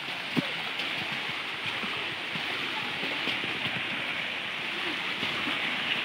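Steady rushing of river water over rocks, an even hiss; a single sharp tap about half a second in.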